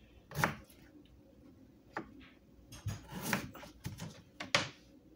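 A kitchen knife cutting through a cucumber onto a cutting board: about six separate, irregularly spaced cuts and knocks of the blade on the board.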